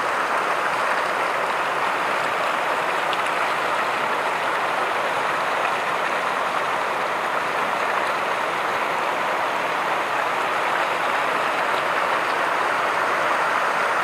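Waterfall rushing over rock slabs in white-water cascades: a steady, even rush of water.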